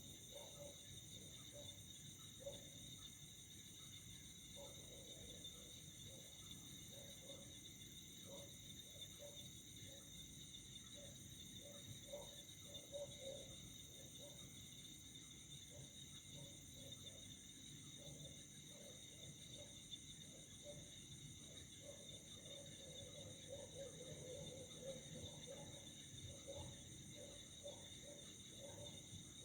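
Faint night chorus of crickets or similar insects: a steady, continuous high-pitched trilling. Underneath it, many short, low calls repeat irregularly.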